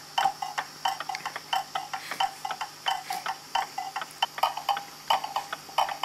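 Mechanical pendulum clock movement ticking steadily, its escapement clicks picked up close-up by a clip-on pickup so each tick is sharp and loud.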